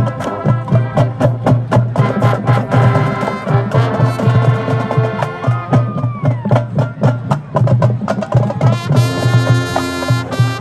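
High school marching band playing: a drumline keeps a steady, driving beat under the horns, with a note bending down about halfway through and a loud, bright brass chord held near the end.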